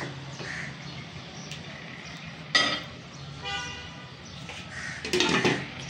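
A vehicle horn toots briefly about three and a half seconds in, over a steady low hum. Two other short, louder sounds come about two and a half and five seconds in.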